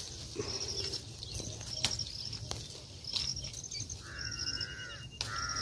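Repeated short, high-pitched chirping, with a longer wavering call about four seconds in, over a low outdoor rumble. A couple of sharp clicks are heard as the vine is handled.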